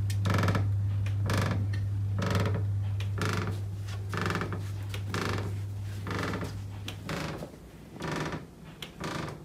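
A high-rise hotel building creaking rhythmically, about once a second, as it sways: the strange noise of a malfunctioning vibration-control system that set the building swaying. A steady low hum lies under the creaks and stops about seven seconds in.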